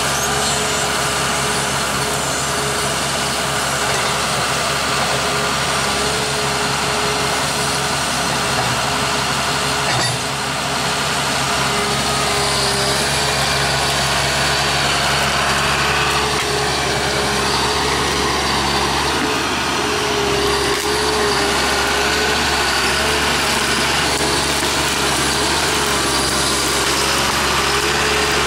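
John Deere forwarder's engine running steadily, with a steady whine held over it while the crane works; a single brief knock about ten seconds in.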